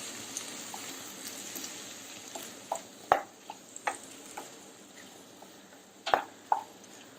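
Prawns, coconut pieces and spice masala sizzling gently in coconut oil in a pan while being stirred, the sizzle slowly fading. A few sharp clicks of the spoon against the pan, the clearest about three, four and six seconds in.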